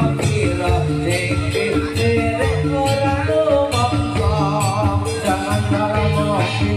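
Live jathilan dance music: a Javanese gamelan-style ensemble playing with regular drum strokes, and a singer's voice wavering over it.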